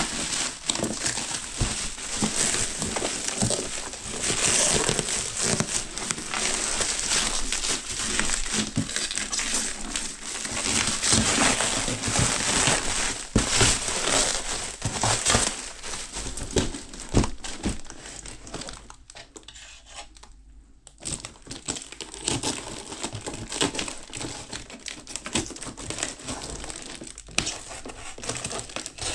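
Plastic packing wrap being peeled and pulled off a package by hand: a long, irregular run of crinkling and crumpling. It goes briefly quieter about two-thirds of the way through.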